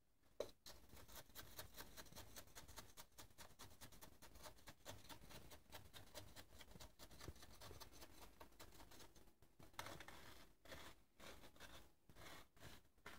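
Faint rustling of tissue paper and light scraping and clicking of a small tool against a paper fireworks shell hemisphere during hand assembly. One sharper tap comes about half a second in.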